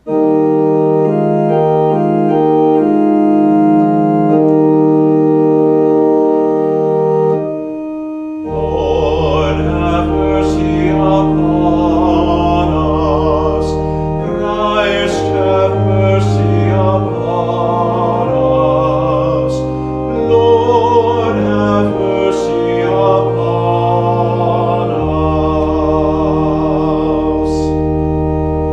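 Two-manual church organ playing sustained chords. After a brief pause about eight seconds in, deep bass notes come in and a voice sings along with the organ.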